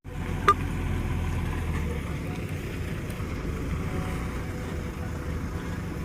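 JCB 3DX backhoe loader's diesel engine running steadily, with a single sharp knock about half a second in.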